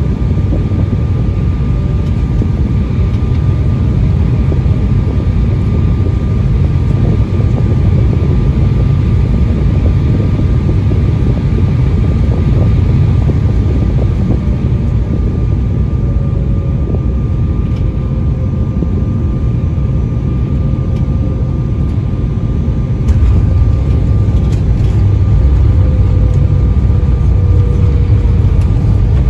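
Cabin noise inside an Embraer ERJ-175 airliner on final approach: a steady deep rumble of airflow and its GE CF34 turbofan engines, with a faint steady engine whine. About three-quarters of the way through, the touchdown comes as a few thumps, and the rumble turns louder as the jet rolls out on the runway with its spoilers up.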